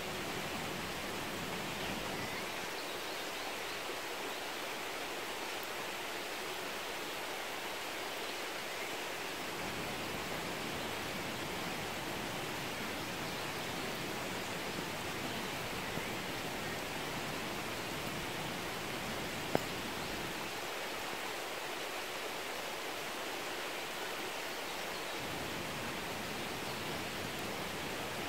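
Rain falling in a steady, even hiss, with one sharp tick about two-thirds of the way through.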